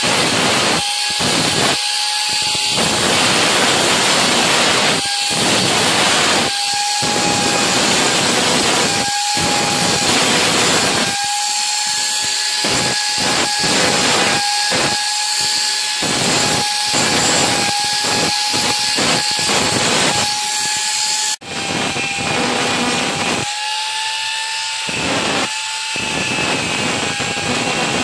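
Angle grinder running with a steady high whine, its disc grinding a metal tube and throwing sparks. The grinding hiss breaks off and comes back many times as the disc is lifted and pressed again, with a brief drop-out about three quarters of the way through.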